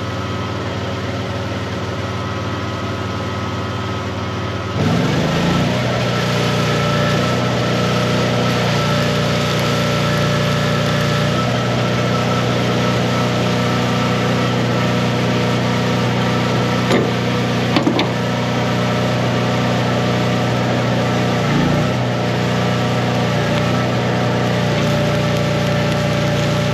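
Engine-driven Miller welder running steadily. About five seconds in, its engine speeds up to a higher, louder pitch as load comes on. A few sharp clicks come later.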